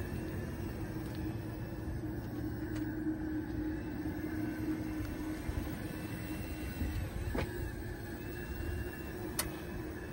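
Jeep Wrangler 4xe pedestrian warning system giving off a steady electronic hum, several constant tones at once, over a low rumble of highway traffic.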